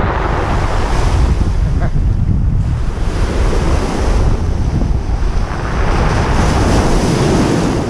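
Sea surf washing on the shore, swelling and fading a few times, with wind buffeting the microphone in a heavy rumble.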